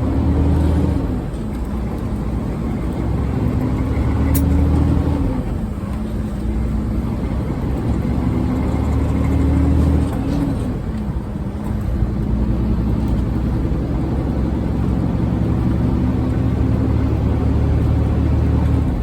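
Semi truck's diesel engine running under way, heard from inside the cab with road rumble; the engine note climbs and then drops sharply about three times.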